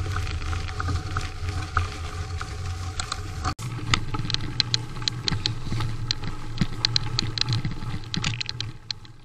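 Riding noise of a fat bike on a packed-snow trail picked up by a GoPro mounted on the bike: a steady low rumble of tyres and wind on the microphone. After a brief dropout about three and a half seconds in, many sharp clicks and rattles sound over it.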